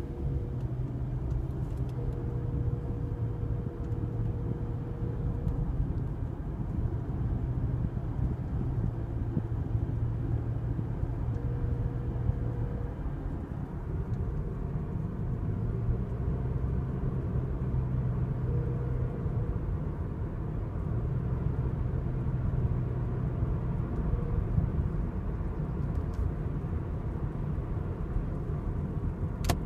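Inside a 2003 Toyota Camry: steady engine and road rumble, with a thin steady tone that switches on and off several times, lasting from under a second to several seconds at a time. This is the intermittent 'mystery chime' whose cause the owners don't know. A sharp click sounds near the end.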